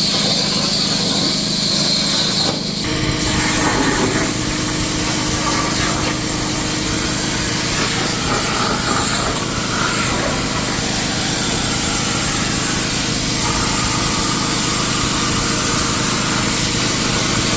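CNC plasma torch on a ShopSabre Sidekick table cutting steel plate: a loud, steady rushing hiss of the cutting arc. The sound shifts abruptly about three seconds in.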